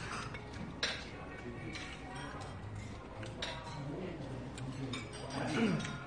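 Chopsticks clicking against a small stainless-steel bowl and dishes while eating, a few sharp clinks, the clearest about a second in and another near the middle.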